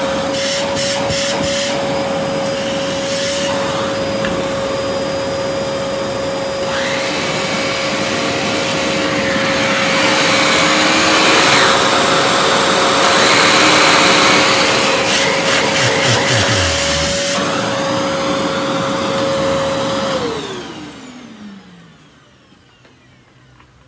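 Canister vacuum cleaner running with its electric power nozzle attached: a steady motor whine over airflow noise, somewhat louder and harsher in the middle. It is switched off near the end and winds down with a falling pitch.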